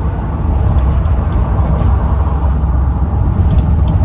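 Loud, steady low rumble of wind buffeting the microphone, mixed with road noise, while riding in the back of a moving car.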